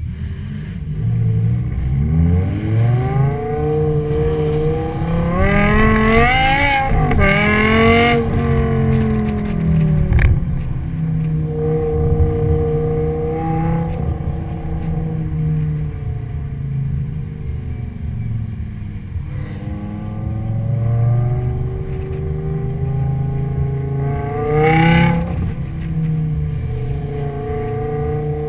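Car engine pulling away and accelerating, its pitch climbing over several seconds and then dropping as it eases off. It cruises at a steady note, then revs up again near the end before settling.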